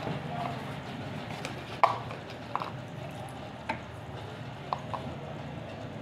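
Knocks and clicks of a ceiling fan's motor housing and down-rod being handled on a wooden workbench as the fan is taken apart: one sharper knock about two seconds in, then a few lighter clicks.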